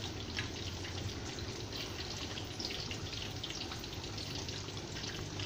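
Water boiling in the base of a stovetop steamer pot: a steady bubbling hiss with small crackles, over a low steady hum.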